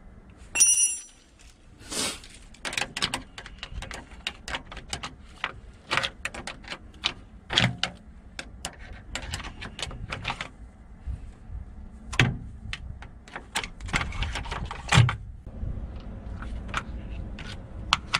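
Metal hand tools clinking, knocking and scraping on a bus battery's negative terminal clamp as the cable is loosened and taken off, so the battery won't drain while the bus stands idle. A ringing metal clink comes about half a second in, followed by many quick clicks and a few heavier knocks.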